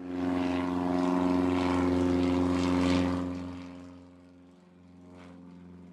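Propeller aircraft engine drone, a steady low pitched hum. It swells over the first three seconds, then fades over about a second and a half to a quieter, steady drone.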